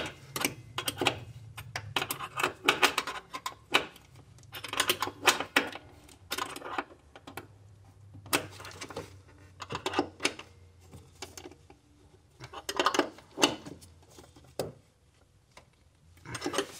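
Sharp metallic clicks and clinks of a wrench working the throttle-cable fitting at the accelerator pedal arm, in irregular clusters that stop about a second and a half before the end.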